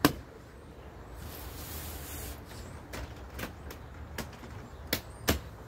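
A sharp knock, then a brief rustle and a few lighter clicks and taps: hands working on a small camping trailer's plastic lid.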